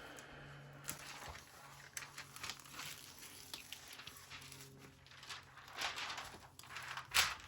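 Crinkling and rustling as a diamond painting canvas and its plastic covering are handled, in many short scrapes with a sharper crackle near the end. A faint low steady hum runs underneath.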